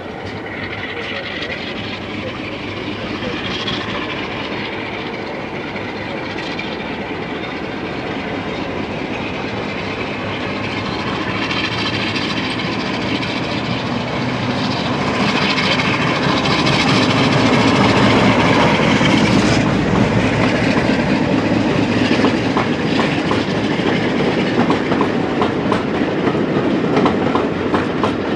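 Train approaching and passing, its sound building to a peak about two-thirds of the way through, with wheels clicking rhythmically over the rail joints in the second half.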